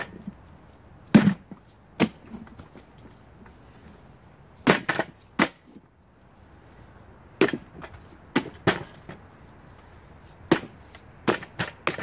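A large chopping knife hacking into a hollowed pumpkin: about a dozen sharp chops in uneven groups, blade striking through the pumpkin's rind and flesh.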